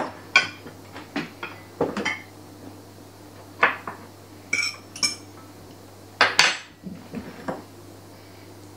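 Kitchen utensils clinking and knocking against a glass mixing bowl and a stainless steel pot: about a dozen irregular strikes, a couple of them ringing briefly around four to five seconds in.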